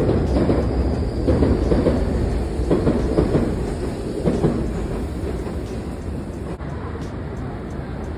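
Steady low rumbling noise with an uneven clatter, gradually fading over the last few seconds.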